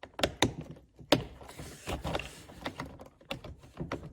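Irregular plastic clicks and knocks as a door trim panel is held against the door and its wiring harness connector is handled and pushed together.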